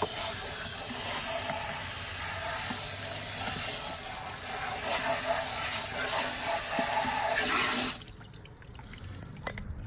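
Garden hose spraying water into the rubber-lined drum of a Frankford Arsenal rotary tumbler, rinsing it out. The steady spray stops suddenly about eight seconds in.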